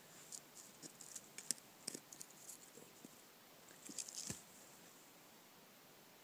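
Faint scratching and small crumbling clicks of chaga fungus being scraped up by hand, scattered over the first three seconds, then a short rustle of fibrous tinder being handled about four seconds in.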